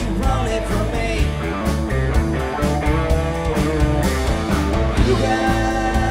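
Rock and roll band playing, electric guitar lines over bass and drums with a steady beat.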